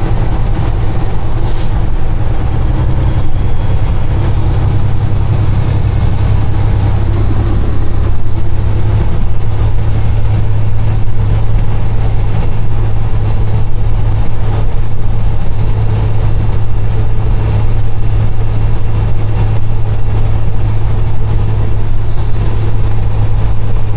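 Kenworth semi truck's diesel engine and road noise heard inside the cab while driving: a loud, steady low drone.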